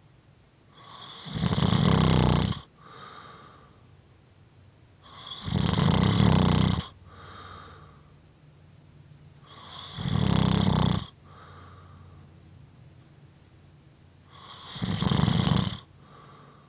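A person snoring: four loud snores, about four and a half seconds apart, each followed by a quieter, shorter breath.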